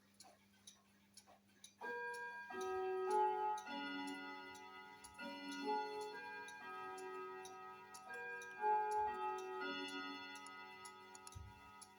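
A chiming clock playing a melody of ringing notes, starting about two seconds in, over the steady ticking of clocks.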